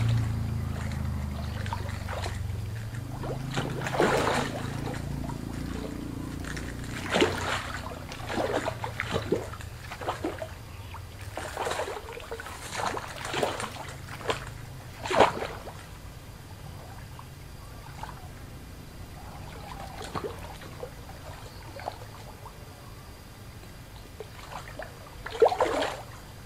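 Shallow water splashing and sloshing as a hooked fish thrashes at the surface and a wader grabs at it. The splashes are short and irregular, thickest in the first half, with one more near the end, over a low rumble that fades away in the first few seconds.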